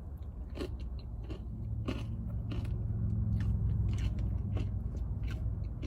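Close-up chewing and crunching of a mouthful of acai bowl with oatmeal, with scattered small crunches. A low steady rumble swells and fades in the background through the middle.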